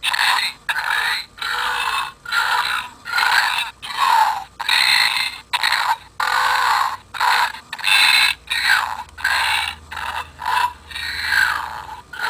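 Burping novelty keychain playing recorded burps through its small speaker: a quick run of short, croaky burps, roughly one a second, thin with no deep bass.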